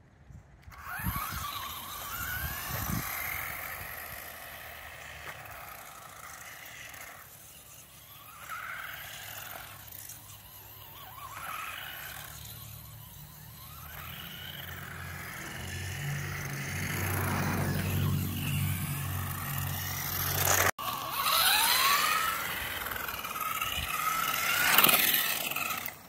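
The BEZGAR HM163 1:16 RC truck's brushless electric motor whines, rising and falling in pitch as the truck speeds up and slows down, with its tyres hissing and scraping on asphalt. A low rumble builds up in the middle.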